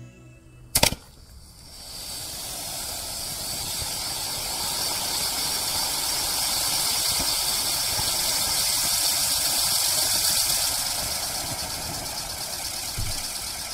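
Tai Pan 'Burnout' ground fountain firework burning. A sharp crack about a second in, then a loud, steady hiss of spraying sparks that builds over a few seconds and eases off near the end.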